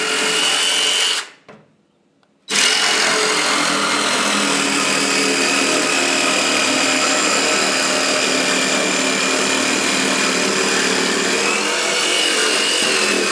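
A power tool running steadily, with a thin high whine over its noise. It drops out for about a second near the start, then runs on unbroken.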